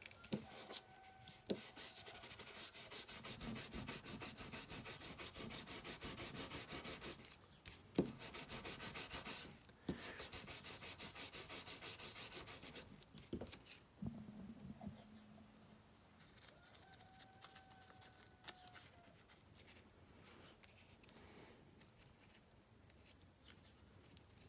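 A small ink pad rubbed quickly back and forth over a paper scrap to ink it. The scrubbing comes in two runs of about five seconds each, then gives way to faint paper handling.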